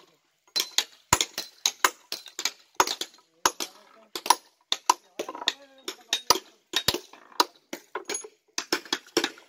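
A small hand hammer striking the edges of rough Shahabad limestone slabs, about three sharp clinks a second in an uneven, steady rhythm.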